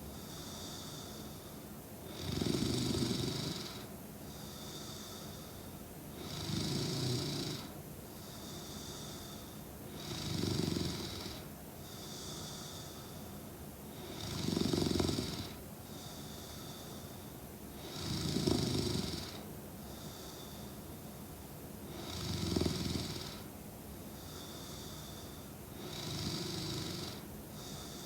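A sleeping woman snoring: seven rattling snores on the in-breath, evenly spaced about every four seconds, with a softer hissing breath out between them.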